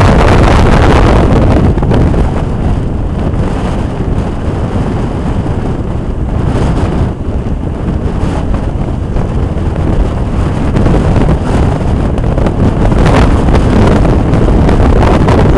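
Strong storm wind blasting the microphone, over the wash of heavy surf. The rumble rises and falls in gusts and is loudest near the start and near the end.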